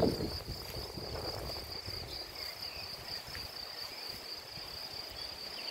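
Crickets chirring steadily in the meadow grass, one continuous high-pitched buzz, with a low thump right at the start.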